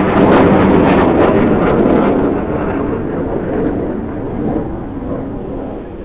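Engine noise of a passing grey military aircraft, loud at first and fading steadily as it flies away.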